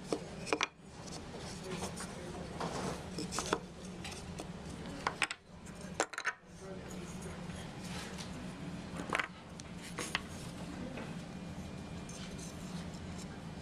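Wooden tangram pieces clacking and tapping against each other and the tray as they are handled and set into place, in scattered sharp knocks over a steady low hum.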